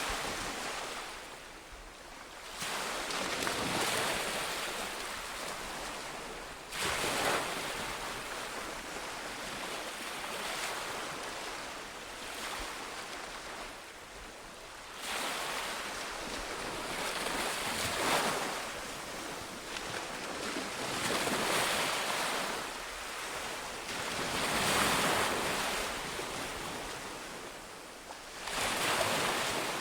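Sea waves breaking and washing onto the shore, a new surge every few seconds, each one swelling and then fading.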